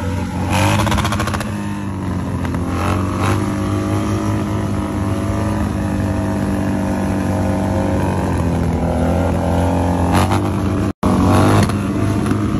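Harley-Davidson V-twin motorcycle engine running under load during a wheelie, its revs rising and falling, with sharp blips about half a second in and again near the end. A brief gap about 11 seconds in.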